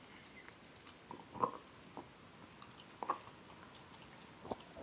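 A German Shorthaired Pointer–Australian Cattle Dog mix gnawing on a bone, giving a few faint separate crunches and clicks. The loudest come about a second and a half in and again around three seconds.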